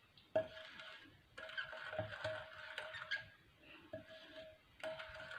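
Wooden spoon stirring lemon juice, lemon peels and undissolved sugar in a bowl: faint scraping with a few light knocks against the bowl, as the sugar is worked to dissolve it.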